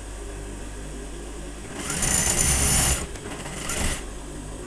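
Industrial lockstitch sewing machine stitching a seam: a steady low motor hum, then the needle running fast for about a second, followed by a shorter second burst near the end.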